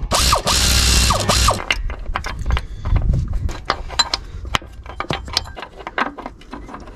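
Pneumatic air ratchet running in a short burst, a steady hiss with a low hum, backing out a bracket bolt; it stops about a second and a half in. Small metal clicks and taps follow as the bolt and bracket are handled.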